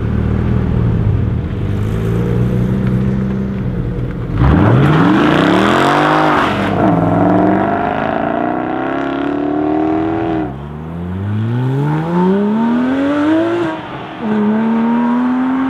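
A Mercedes CLK 63 AMG Black Series with its 6.2-litre V8 and a Porsche 997 GT3 RS with its flat-six, the Porsche's side silencers removed for a Cup-style straight section, first run low and steady. About four seconds in, the engine note jumps as they accelerate hard, climbing through the gears with three upshifts, each dropping the pitch before it climbs again.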